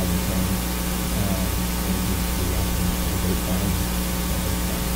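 Steady electrical hum with a constant hiss, the room and recording noise of the presentation room, with a few faint, brief voice-like sounds now and then.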